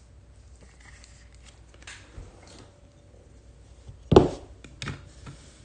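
Trading cards in hard plastic cases being handled: a few light clicks, then a sharp knock about four seconds in as a cased card is set down into a plastic display stand on the table, and a smaller knock just under a second later.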